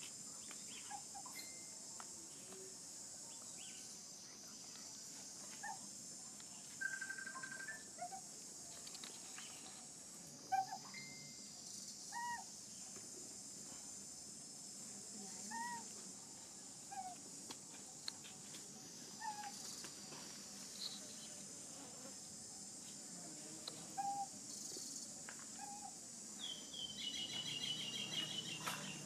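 Continuous high-pitched drone of insects, with short chirping calls scattered throughout and a fast trill near the end.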